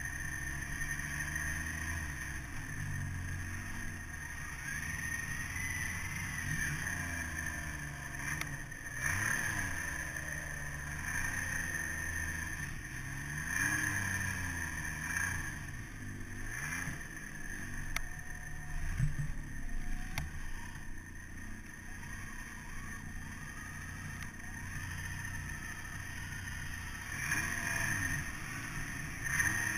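Snowmobile engine running under the rider while ploughing through deep powder, its revs rising and falling again and again. A steady high whine runs alongside the engine.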